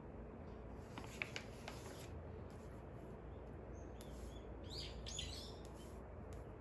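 Faint birds chirping, a few short chirps about two-thirds of the way in, over a low steady background hum. A couple of sharp clicks come about a second in.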